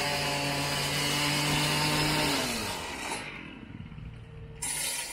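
Gas-powered cut-off saw running at a steady high speed, then throttling down and winding off about two and a half seconds in. A short burst of hiss follows near the end.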